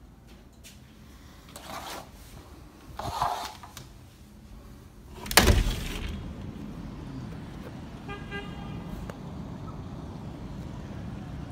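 Curtains swished aside twice, then a sharp loud knock, after which a steady rumble of city traffic far below comes in, with a car horn honking once about eight seconds in.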